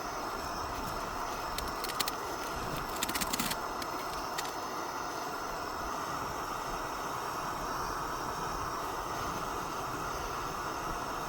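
Steady rushing noise, with a few light clicks and taps in the first few seconds.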